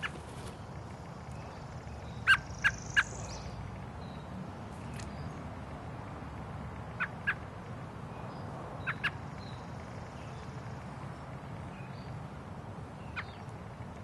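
Bird giving short, sharp call notes: a quick run of three about two seconds in, then pairs and a single note later, with faint higher chirps, over a steady background hum.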